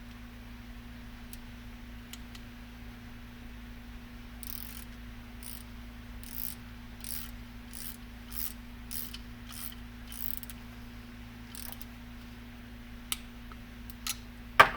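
Ratchet tool tightening a screw: a steady run of about nine clicks, roughly one and a half a second, over a low steady hum. A few loose clicks follow, and there is a sharp knock near the end.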